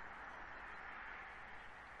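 Steady, faint outdoor background hiss, with no distinct bird calls or wingbeats.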